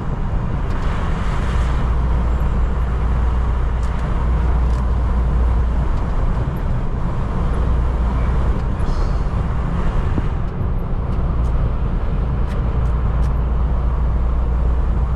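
Semi-truck driving, heard from inside the cab: a steady low engine and road rumble, with a few faint ticks near the end.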